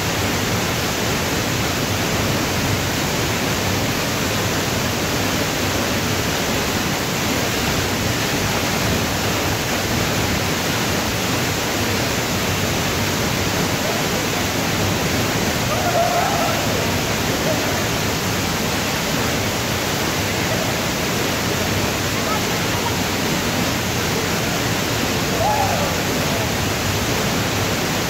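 Tall waterfall pouring into a plunge pool: a steady, unbroken rush of falling water. Faint voices call out briefly about midway and again near the end.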